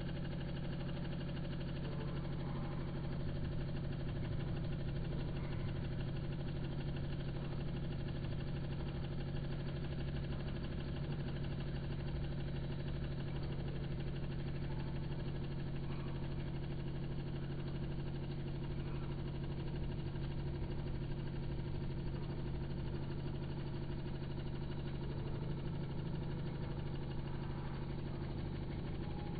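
Aquarium pump running with a steady low hum made of several even tones.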